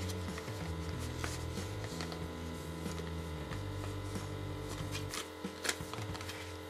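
Background music with a low bass line changing pitch every second or so, over a few light crinkles of a thin plastic anti-static bag being handled.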